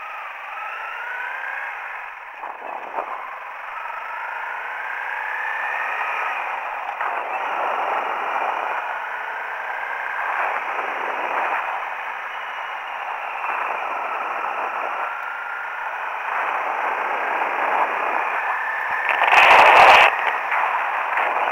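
Wind rushing over the microphone on a moving dual-sport motorcycle, with the Honda CRF250L's single-cylinder engine faintly heard underneath, its pitch rising again and again as it pulls through the gears. A loud burst of noise comes about nineteen seconds in.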